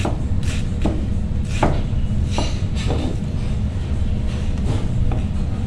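Kitchen knife slicing through cabbage and knocking on a cutting board: a handful of separate, irregularly spaced knocks, mostly in the first three seconds, over a steady low rumble.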